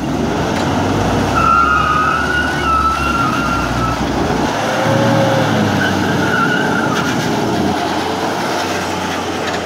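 A Toyota Land Cruiser and a tractor, chained together, revving hard under load in a tug of war, the engine note rising and falling twice. A high, wavering squeal cuts through from about a second and a half in to past three seconds, and briefly again later.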